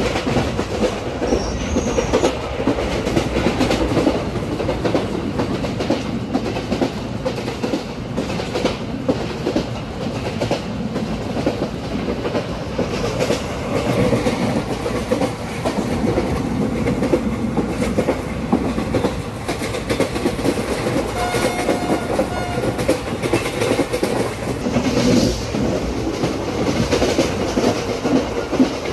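Indian Railways ICF passenger coach running along the track, heard from the open door: a steady heavy rumble of wheels on rail with a continual clickety-clack of rattles and knocks. A brief pitched tone sounds about two-thirds of the way through.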